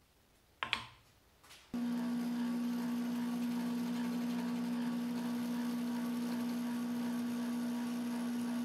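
A short click, then about two seconds in a benchtop drill press switches on and runs with a steady hum as its bit bores a through hole in a Baltic birch plywood block.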